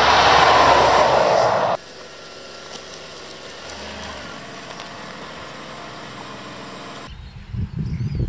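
A heavy truck passes close by with a loud, even rush of engine and tyre noise that cuts off sharply about two seconds in. Then comes a much quieter, steady vehicle engine hum, and near the end a low, uneven rumble.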